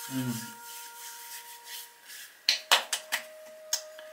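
Hands rubbing facial toner into the skin of the face, then a few sharp pats on the face between about two and a half and four seconds in.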